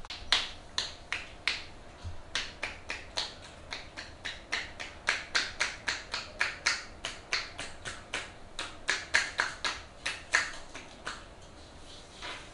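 Percussive tapotement massage on a forearm: the masseuse's hands, clasped palm to palm, strike the arm in quick succession, each stroke a crisp clap, about three a second. The strokes stop near the end.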